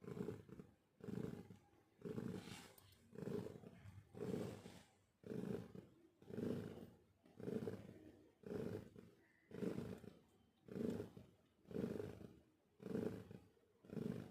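Domestic cat snoring: a low, rasping snore that repeats steadily about once a second with each breath.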